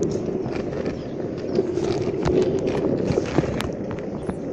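Longboard wheels rolling on pavement: a steady rumble with scattered sharp clicks and knocks from the board over bumps and joints.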